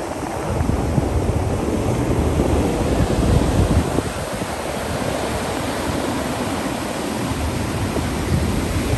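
Ocean surf breaking and washing up a beach, with wind buffeting the microphone. The rush swells about half a second in and eases off after about four seconds.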